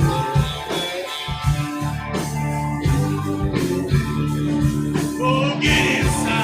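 Live rock band playing an instrumental passage, led by guitars over bass.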